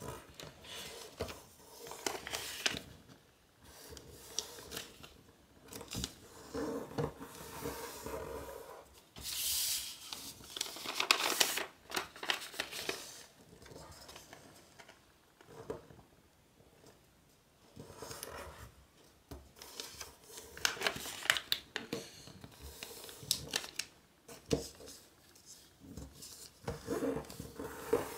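A sheet of origami paper being folded and pre-creased by hand: irregular rustling and crinkling as the paper is rolled over, pressed flat and creased with the fingers, with louder stretches about a third of the way in and again past two-thirds.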